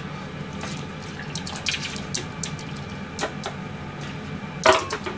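Wet, soupy chicken-and-vegetable food being tipped from a plastic tub into a ceramic dog bowl: scattered small clicks and wet plops, then one sharp knock near the end, over a steady low hum.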